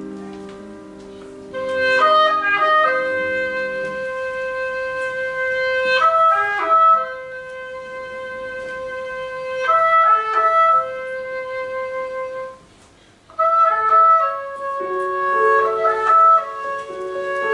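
Oboe and piano duet: a piano chord rings and fades, then the oboe plays a slow melody of long held notes in phrases. The oboe stops briefly about thirteen seconds in, then comes back over the piano.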